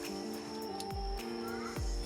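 Background electronic music: sustained synth tones with two deep, falling bass-drum hits.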